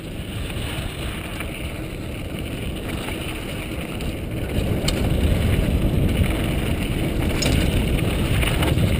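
Wind buffeting a helmet-mounted camera's microphone, mixed with the rumble of mountain bike tyres on a dirt trail. It grows louder about halfway through, with a few sharp rattles.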